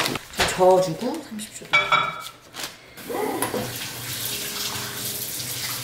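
A few short voice sounds, then a kitchen tap running steadily from about halfway through.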